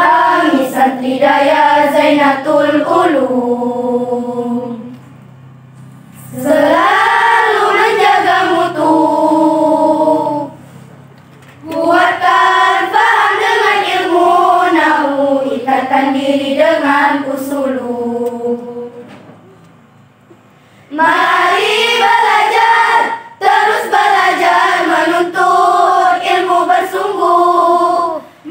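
A choir singing a song in four long phrases, with short pauses between them.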